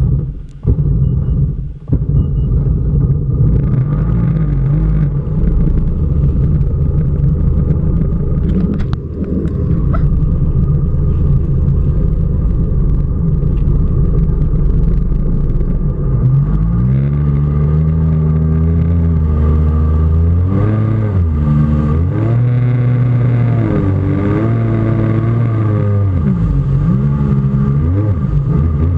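Jet ski engine running steadily, then revving up about halfway through and rising and falling in pitch as it pulls a wakeboarder. Water rushes and splashes close by throughout.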